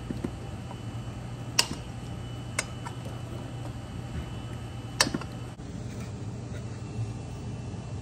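Three sharp plastic clicks as wiring connectors are worked loose by hand on a refrigerator compressor, over a steady low hum.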